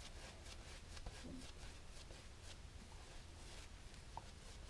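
Faint, repeated scratchy swishes of a shaving brush painting lather across the face and beard stubble.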